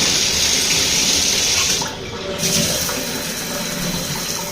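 Shower running, water spraying steadily, turned on to test a shower head that an inspection report listed as leaking. The spray briefly drops off about two seconds in, then runs on a little quieter.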